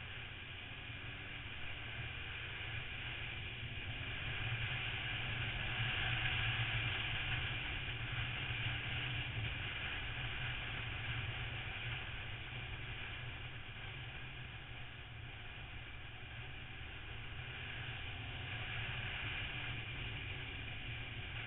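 Motorcycle riding at speed, heard from on board: a steady mix of engine drone and wind rush that swells for a few seconds about a third of the way in.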